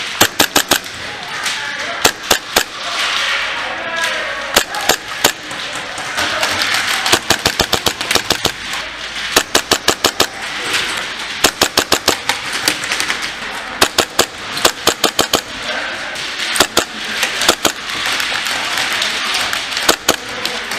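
Tokyo Marui Hi-Capa 4.3 gas blowback airsoft pistol firing in quick strings of sharp cracks, several shots in rapid succession, again and again. Between strings there is a steady noisy background with voices.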